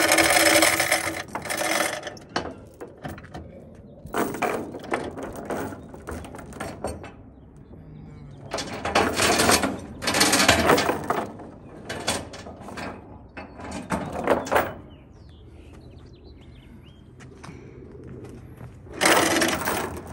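Steel tie-down chain rattling and clanking as it is hooked to a tractor's frame and pulled across a wooden trailer deck. It comes in several separate bursts of a second or two, with quieter stretches between.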